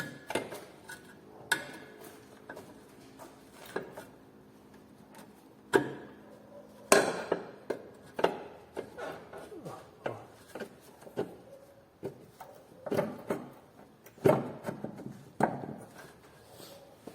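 Irregular metal clanks and knocks, some ringing briefly, as a new lower control arm is worked onto the stabilizer bar link and into its mounting on a 2012 Chery QQ's front suspension. The sharpest knocks come about six, seven and fourteen seconds in.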